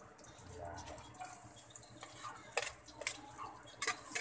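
Metal spoon clicking against a metal cooking pot a few times as garlic and ginger are stirred into hot oil, with frying sizzle rising near the end.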